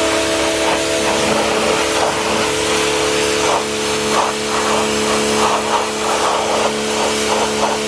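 Greenworks Pro 60V battery pressure washer running: a steady electric motor-and-pump hum under the hiss of the water jet washing algae off stone.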